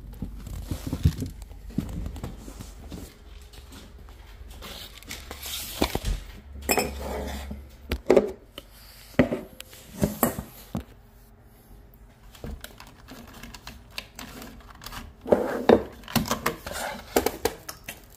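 Intermittent clinks, clatter and rustling of tools and small metal or plastic parts being handled, over a low hum that stops about seven seconds in.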